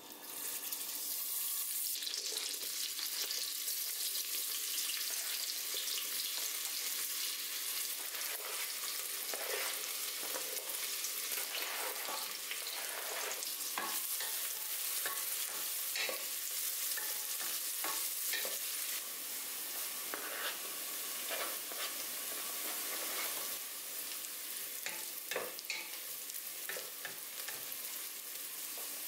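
Diced carrot and onion frying in butter in a stainless steel pot, a steady sizzle that sets in abruptly. A wooden spatula stirs and scrapes the vegetables across the pot bottom, with frequent small knocks and clicks.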